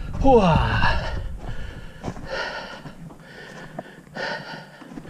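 A man breathing hard, in heavy gasping breaths about once a second, from the effort of climbing a steep hill. Near the start comes a short groan that falls in pitch.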